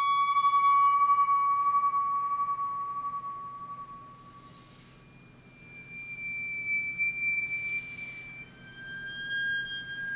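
Theremin holding long, clear, high notes: a first note that fades out after about four seconds, then a higher note, then a somewhat lower one near the end.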